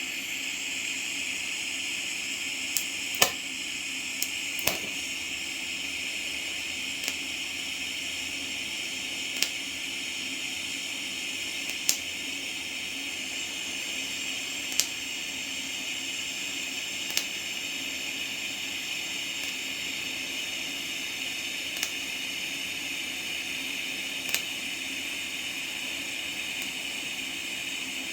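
TIG welding arc burning steadily with a constant hiss and buzz as a weld bead is laid, with about a dozen sharp ticks scattered through it.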